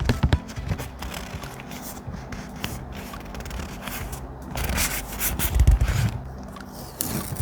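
Thick paper being rubbed and handled, with light clicks and taps in the first second and a louder stretch of rubbing about five to six seconds in.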